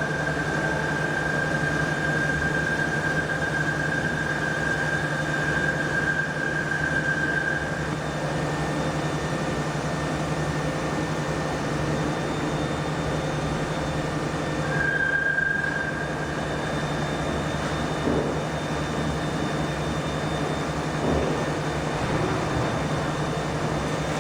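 Steady workshop machinery hum with a high, steady whine that cuts out about a third of the way in and comes back briefly around the middle.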